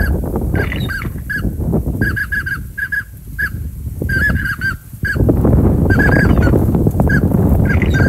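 Geese honking: many short calls in quick runs. Under them is a loud wind rumble on the microphone, which eases briefly twice around the middle.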